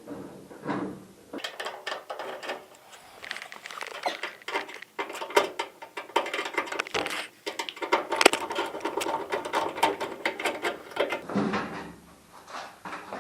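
Hand tools working on a washing machine being taken apart: a dense run of fast metallic clicking and rattling that starts about a second and a half in and stops near the end.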